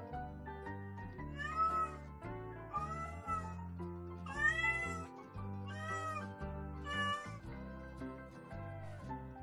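Domestic cat meowing five times in a row, each meow rising then falling in pitch, over background music.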